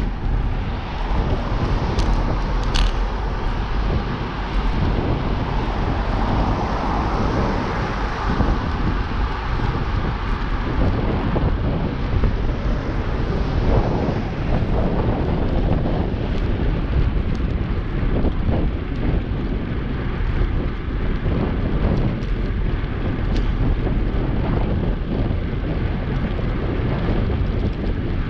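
Wind buffeting the microphone of a camera on a moving bicycle, a steady rushing noise with road traffic beneath it. There are two short sharp clicks about two seconds in.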